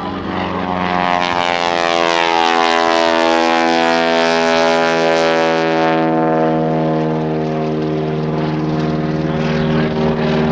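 A Grumman Ag Cat biplane's engine and propeller droning loudly as it flies past. The pitch slides lower as the aircraft goes by, and the high hiss falls away about six seconds in.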